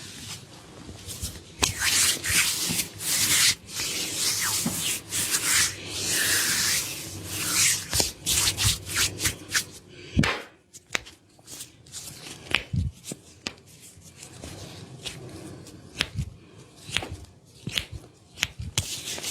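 Hands rubbing and massaging skin in repeated short strokes, with scattered sharp clicks and a couple of dull knocks.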